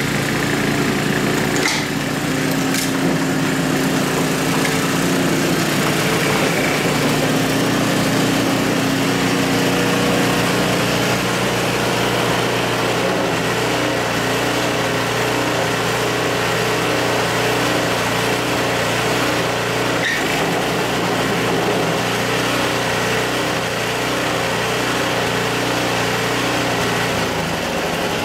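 Tecumseh HSSK40 4 hp Snow King four-stroke engine on a Troy-Bilt snowblower, running steadily while under a snow-clearing load test after its carburetor rebuild. Its speed drops shortly before the end.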